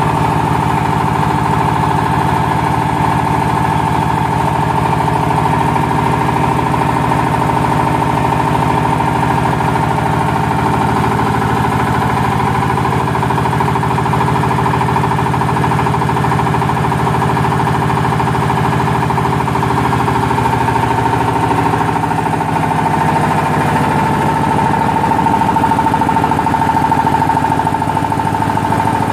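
Yanmar TF300 single-cylinder diesel engine driving a 31 kVA generator, running very smoothly and steadily at idle, with a steady high-pitched hum over the engine note.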